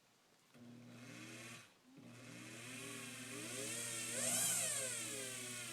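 Electric motor of a Levin clock lathe, driven by a sewing-machine-style foot pedal, starts up, cuts out for a moment, then runs again. Its whine rises in pitch to a peak a few seconds in and drops back to a steady speed, over a constant low hum.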